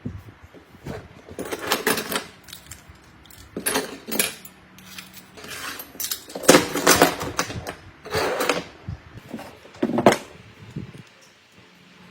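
Handling noise: a string of short, irregular scrapes, rattles and clicks, like hard objects being picked up, moved and set down.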